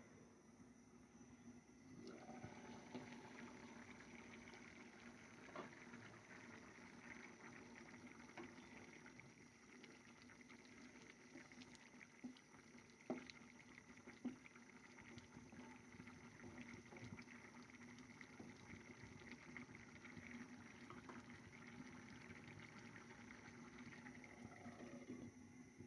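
Faint bubbling and soft popping of chicken and potato curry simmering in a pan, starting about two seconds in, with a few louder clicks in the middle.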